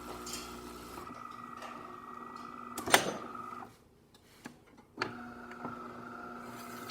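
DeLonghi Magnifica bean-to-cup espresso machine's electric motor running with a steady hum, with a sharp clunk about three seconds in. It stops for a second or so, then starts again with a click, typical of the brew unit cycling to dump the spent coffee puck after a shot.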